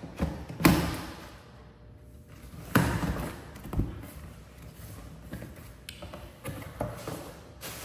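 Cardboard box being cut open with a box cutter and its flaps handled: a series of sharp taps and thumps, the loudest about half a second in and near three seconds in, then lighter knocks as the box is opened.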